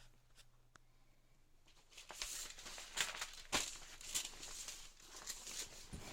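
A kitten kneading and tugging at a piece of its own pet clothing held in its mouth, the fabric rustling and crinkling in a run of scratchy noises with small clicks. The rustling starts about two seconds in and dies down near the end.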